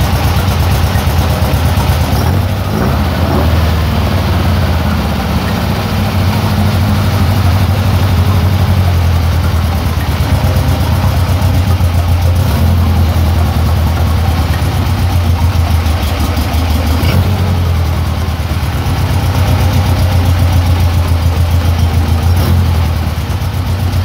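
Air-cooled 1915cc VW flat-four in a Porsche 356 Speedster replica running steadily at idle just after being started.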